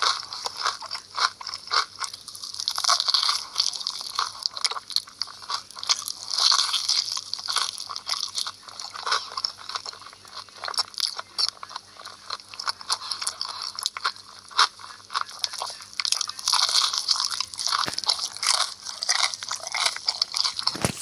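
Crunchy food being bitten and chewed: a dense, uneven run of sharp crackling crunches.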